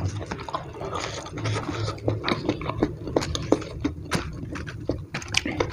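Close-up wet chewing and lip-smacking of a man eating rice, fried chicken and raw lettuce by hand, with many irregular sharp clicks and crunches.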